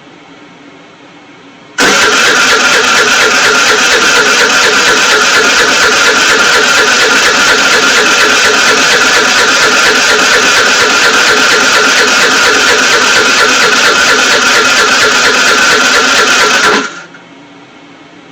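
Scooter's electric starter cranking the engine non-stop for about fifteen seconds, with a fast, even pulse and a steady whine, and the engine never catches. It starts about two seconds in and cuts off suddenly near the end.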